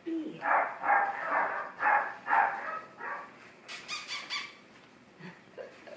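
Five-week-old puppies yapping and squealing: a quick run of short yaps in the first couple of seconds, then a brief high squeal about four seconds in.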